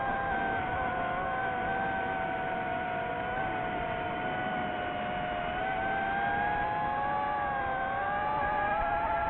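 FPV racing drone's brushless motors and propellers whining steadily, the pitch wavering and rising a little after about six seconds.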